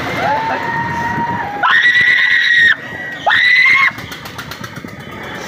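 Riders screaming on a fairground ride: a lower drawn-out scream, then two loud, high, held screams, the first about a second long, the second shorter.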